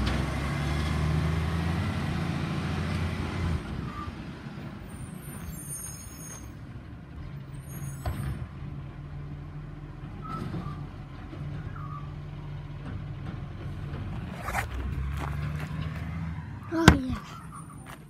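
Garbage truck engine running as the truck pulls away, loud at first and then fading, then growing louder again later on as it moves further down the street. A single sharp knock comes near the end.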